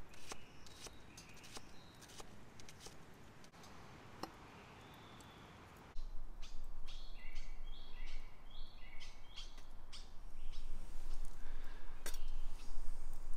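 A knife chopping an onion on a wooden stump, quick sharp clicks. After a quiet stretch, songbirds chirp in short stepped phrases. In the last few seconds potatoes sizzle in a frying pan on a small firebox stove.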